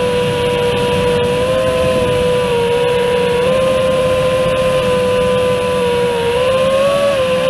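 Brushless motors and props of a 5-inch FPV quadcopter (GEPRC SpeedX 2306.5 1850kv motors, Gemfan 51433 props, 6S) giving a steady high whine over a rush of prop wash, heard from the quad's own DJI O3 air unit. The pitch stays nearly even, dips briefly and then rises about six and a half seconds in.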